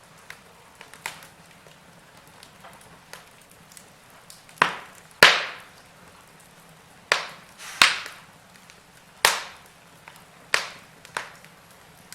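Wood fire crackling: a faint steady hiss with small crackles, and a run of loud, sharp pops from about four seconds in, each dying away quickly.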